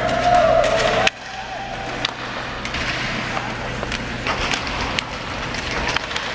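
Ice hockey practice in an arena: skates scraping on the ice with scattered sharp clacks of sticks and pucks, over the hollow rink ambience. A held tone sounds in the first second, then the level drops suddenly about a second in.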